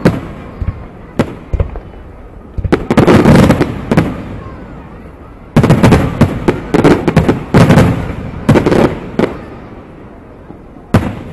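Aerial fireworks shells bursting in the sky, each bang followed by a rumbling echo. A few bursts come in the first four seconds, then a rapid string of bangs for about three and a half seconds, and one more near the end.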